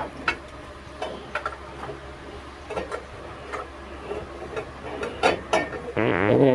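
Scattered light clicks and knocks of metal parts and hand tools being handled while working on a car's exhaust. Near the end a loud wavering, pitched sound cuts in.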